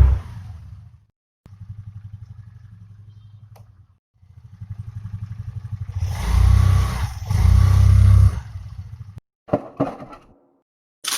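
Home-made foley sound effects for a dinosaur scene. A deep rumble dies away, a pulsing rumble follows, then a longer rumble swells to two loud peaks and stops abruptly. Short clattering knocks come near the end.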